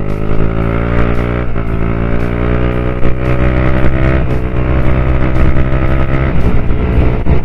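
Yamaha Aerox scooter engine accelerating hard, its pitch climbing over the first second or so and then holding high and steady, with a change about six seconds in. Wind rushes over the action-camera microphone under it.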